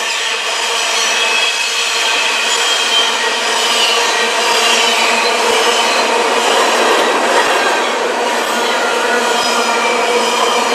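Freight train's covered hopper cars rolling past close by: a steady, loud noise of steel wheels on rail, with thin high squealing tones running through it.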